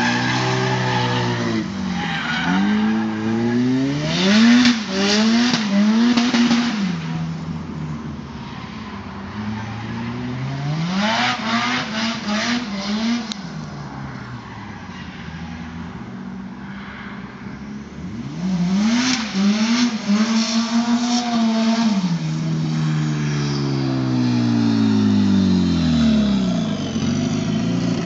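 Nissan Silvia drift car's engine revving up and down over and over as it slides through a cone course, with repeated bursts of tyre squeal. It is quieter for several seconds in the middle, and near the end the engine note falls in one long sweep.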